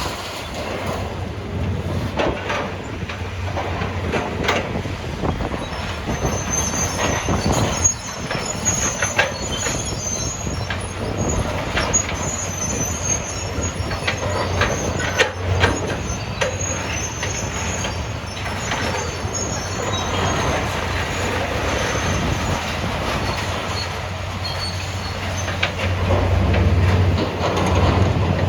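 Hydraulic excavator's diesel engine running while it crushes and loads scrap metal lockers. Metal squeals and scrapes, with repeated clanks and bangs throughout, and the engine gets louder near the end.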